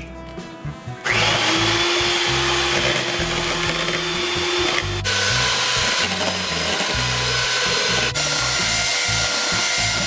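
Sunbeam electric hand mixer switched on about a second in, its beaters whirring steadily through egg and creamed butter and sugar in a bowl, the motor's whine shifting in pitch twice. Background music plays underneath.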